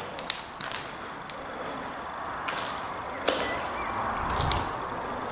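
Footsteps crunching over broken plaster and debris on a concrete floor: scattered short crunches and clicks, a couple of sharper cracks in the middle, and a brief low thump about four and a half seconds in.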